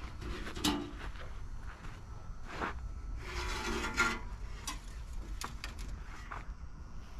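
Handling noises: scattered light clicks and knocks, with a rubbing, scraping noise lasting about a second midway through.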